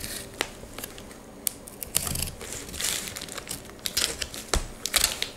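Plastic wrapping crinkling and cardboard packaging rustling as a parcel is cut and opened by hand, in a string of irregular crackles and small knocks.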